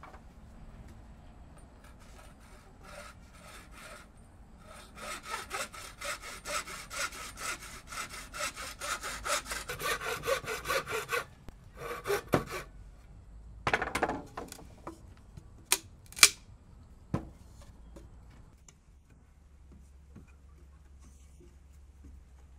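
Hand saw cutting through wood in steady back-and-forth strokes, about two or three a second, stopping about eleven seconds in. A few separate sharp knocks of wood follow.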